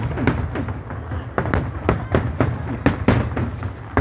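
Fireworks bursting in quick succession: many sharp cracks and bangs, several a second, over a low rumble of booms.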